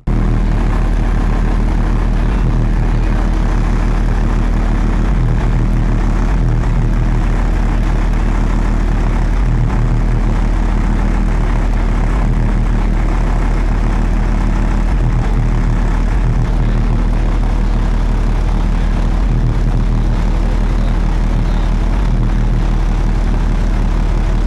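Car audio subwoofers in a Jeep Grand Cherokee playing a steady, very loud low bass drone during a timed SPL competition run, reading about 144 dB on the meter.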